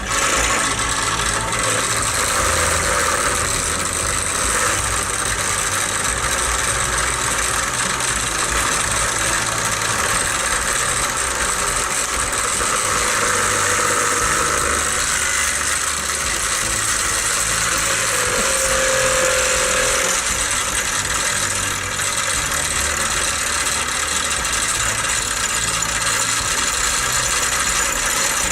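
WEN 4280 bench grinder starting abruptly and running steadily, rattling and vibrating on its stand: a vibration the owner puts down to unbalanced wheels.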